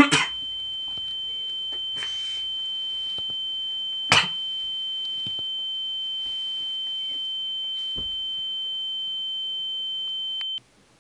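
A steady high-pitched electronic tone, held for about ten seconds and then cutting off suddenly. Over it come short sharp choking coughs at the start and once more about four seconds in.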